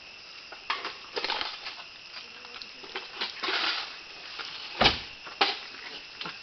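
Irregular knocks, clatter and rustling from an elephant rummaging through a lorry for food. The loudest is a single sharp thump about five seconds in.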